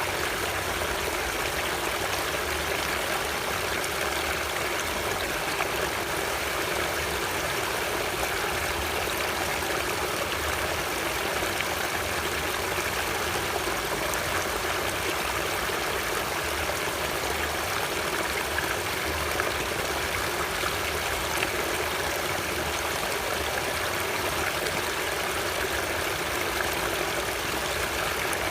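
Running water, most likely a stream, flowing steadily: an even rush with no breaks or changes.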